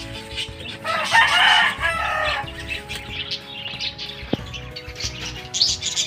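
Small caged birds flapping their wings in a flurry inside a wire cage, with harsh calls, loudest from about one to two and a half seconds in. A single sharp knock comes about four seconds in.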